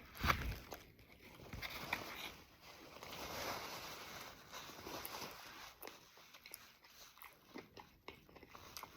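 A person biting into a sandwich and chewing it, close to the microphone, with soft crunching and mouth clicks.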